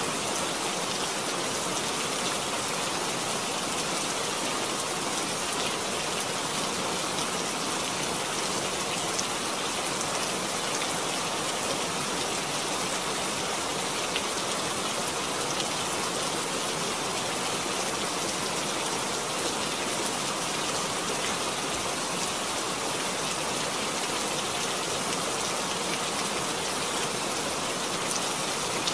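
Heavy rain falling steadily onto standing water, a dense, even sound of countless splashing drops that keeps up without let-up.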